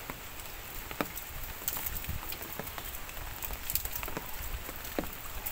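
Irregular pattering of water drops and small splashes over a steady hiss, with scattered sharp ticks about once or twice a second.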